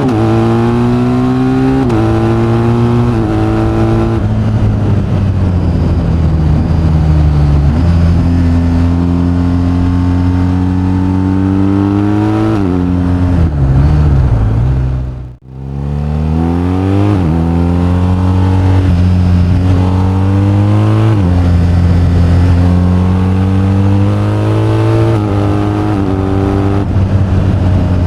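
BMW R1250GS's 1254 cc boxer-twin engine under way, its pitch climbing and stepping down at quick upshifts, holding steady, then falling as the throttle closes. The sound cuts out briefly about halfway, then climbs through the gears again with a run of quick upshifts.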